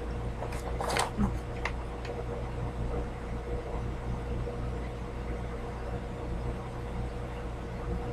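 A few faint crunches in the first two seconds, then a steady low electrical hum.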